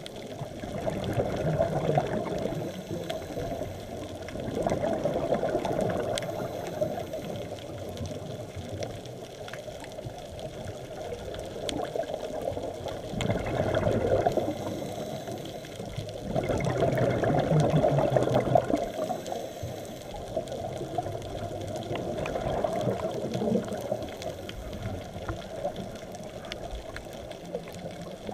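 Underwater sound through a camera housing: a scuba diver's exhaled bubbles swelling and fading every few seconds, with a steady wash of water in between.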